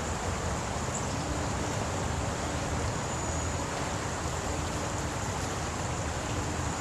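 Steady rushing outdoor noise with no distinct events, with a faint low hum from about a second in.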